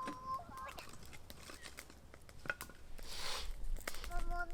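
Scattered sharp crackles and snaps of dry wood, with a short hissing rustle about three seconds in. A child's held voice sounds briefly at the start and again near the end.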